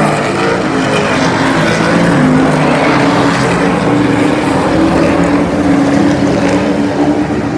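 Super truck racing engines running hard as a pack of trucks races past on the asphalt oval: a loud, steady engine drone from several engines at once, climbing a little in pitch about two seconds in.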